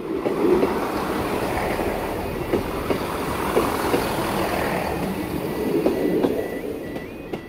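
Transport for Wales Class 158 diesel multiple unit passing over a level crossing, with rolling noise and wheels clicking over the rail joints. The train fades toward the end, when the crossing's warbling yodel alarm comes back through.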